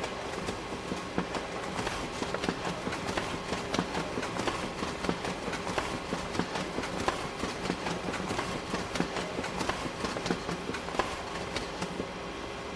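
Photocopier running a copy job: irregular clicking and clacking from its paper feed over a steady motor hum. The clatter stops about twelve seconds in, leaving only the hum of the idling machine.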